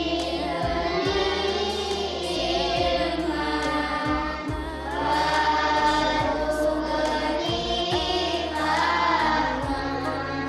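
A group of children singing in unison, a chanted prayer that opens the lesson.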